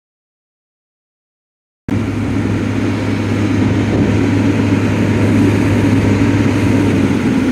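Dead silence for about the first two seconds, then a mobile crane's diesel engine runs steadily with a low, even hum while the crane hoists its load.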